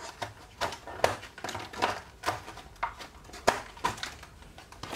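Packing wrapping being pushed back into a cardboard box: an irregular string of sharp taps, clicks and short rustles from handling.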